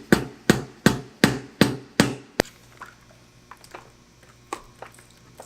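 Quick, evenly spaced hammer blows, about three a second, on the Strange third member of a rear end housing, knocking it loose from its RTV seal. About two and a half seconds in they stop with one sharp click, and a few faint knocks follow.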